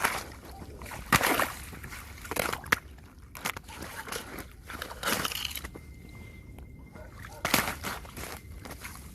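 Tapping and scratching on icy snow: irregular crunching scrapes with a few sharp taps.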